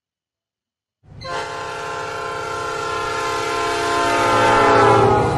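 A train sounding its horn as it passes, with the low rumble of the train beneath, starting about a second in. The horn chord grows louder as the train approaches and drops in pitch near the end as it goes by: the Doppler effect.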